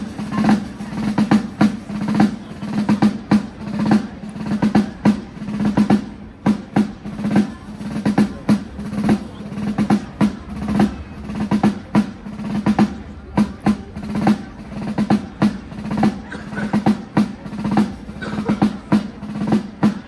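Basel side drums played by a group of tambours, beating a march with rolls and quick strokes in a steady rhythm.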